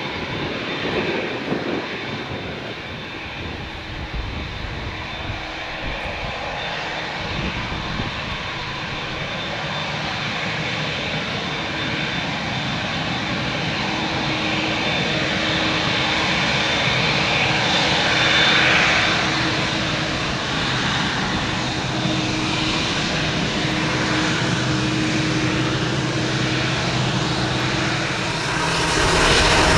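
Boeing 787 Dreamliner's twin turbofan engines running at taxi power as the airliner taxis close by, a steady jet hum with a whine that grows gradually louder. Near the end the sound rises sharply.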